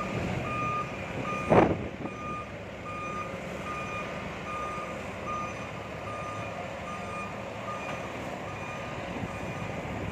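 Reverse-warning alarm of a semi-truck backing a flatbed trailer into a loading bay: a steady beep about twice a second over the low running of the truck's diesel engine. A brief loud thump about one and a half seconds in.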